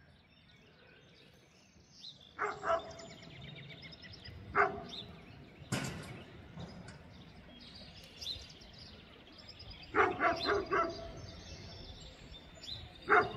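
A dog barking: a couple of single barks in the first few seconds, then a quick run of barks about ten seconds in and another starting near the end. Birds chirp faintly in the background, and there is one sharp knock a little before the middle.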